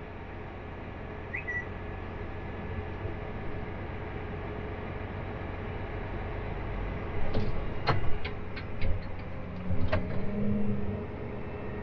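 Tractor engine running steadily, heard from inside the cab. From about seven seconds in, a loader bucket of manure is dumped into the spreader, with a burst of knocks and splats as clumps hit the spreader box and the cab glass.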